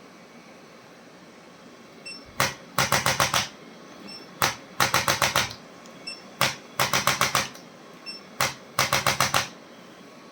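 Chiropractic adjusting instrument firing in four rounds about two seconds apart, each a single sharp click followed by a quick run of about six clicks, with a faint beep just before each round.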